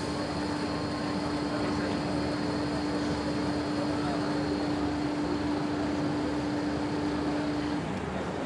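Dishwasher running: a steady rushing wash noise with a constant hum over it that stops near the end.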